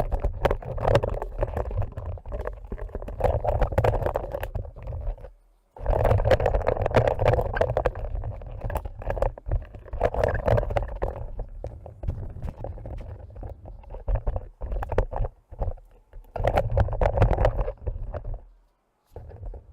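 Fast-forwarded workshop sound of hand work on an engine: a jumble of rapid clicks, knocks and scraping, garbled by the speed-up, with a brief dropout about five and a half seconds in.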